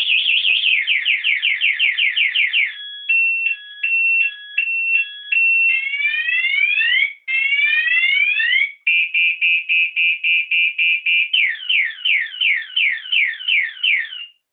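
Scooter alarm siren going off after the armed scooter is moved. It cycles through several patterns in turn: fast warbling sweeps, slower falling sweeps, a two-tone high-low alternation, slow rising whoops, rapid beeping, and falling sweeps again, then it cuts off just before the end.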